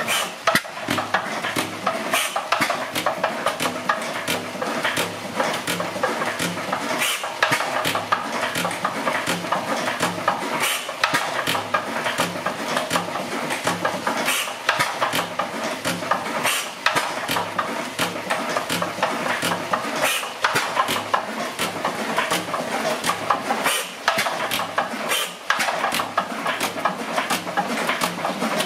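1910 Crossley single-cylinder horizontal hit-and-miss engine running, a continuous rapid mechanical clatter with heavier knocks every second or two.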